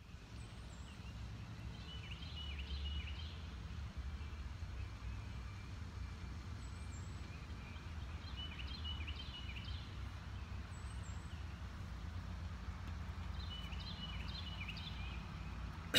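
A songbird singing short chirping phrases three times, about every six seconds, over a steady low rumble.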